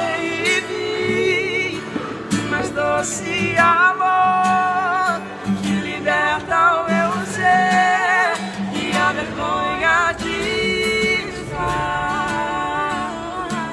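A song with a voice singing long, wavering held notes over acoustic guitar accompaniment.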